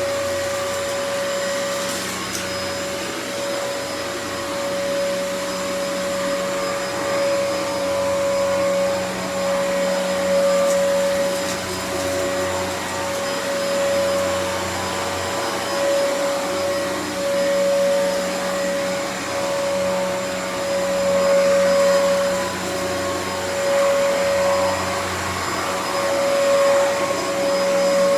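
Dyson DC28 upright vacuum cleaner running continuously, with a steady whine over its airflow hiss; the loudness rises and falls gently every couple of seconds.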